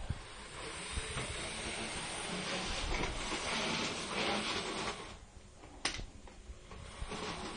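Small model train running on its track: the whir of its electric motor and its wheels on the rails. The whir dips quieter about five seconds in, with one sharp click about six seconds in.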